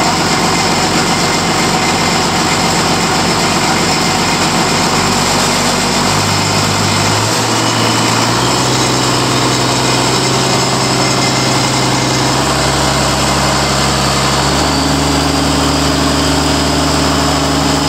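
Daewoo turbocharged diesel engine running on a test stand, its speed raised in several steps. The pitch of its running jumps up about a third, half and three-quarters of the way through, going from a low idle to a faster run.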